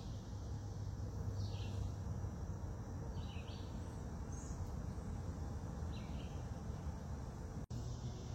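Quiet outdoor background: a steady low hum, with about four faint, short bird chirps scattered through. The sound drops out for an instant near the end.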